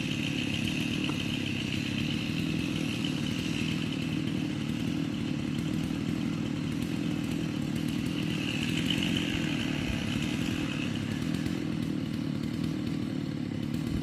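Chainsaw engine running steadily with no sharp revs, swelling slightly in its higher tones about two-thirds of the way through.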